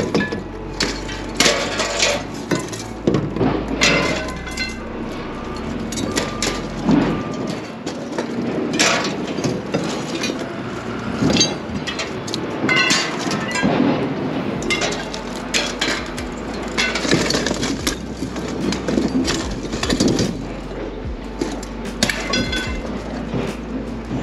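Rusty scrap iron being pulled from a pickup bed and tossed onto a scrap pile: repeated, irregular metallic clanks and clatters of iron striking iron.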